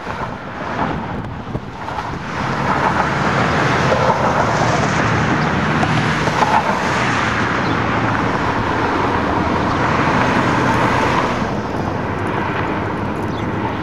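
Road traffic noise from cars going by on the street. It swells a couple of seconds in and eases off near the end.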